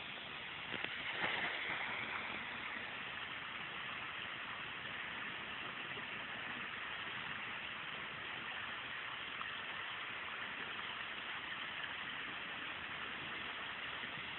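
Steady splashing and rushing of swimming-pool water, with a brief louder splash about a second in.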